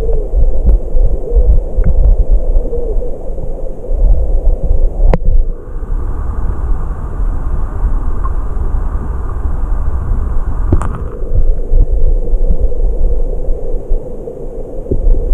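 Muffled, steady low rumble of stream water heard through a camera held underwater, with two sharp clicks, one about five seconds in and one near eleven seconds.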